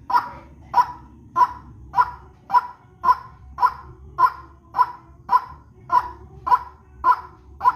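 White-breasted waterhen (ruak-ruak) lure call: short, bark-like notes repeated at a very even pace of about two a second, over a faint low hum.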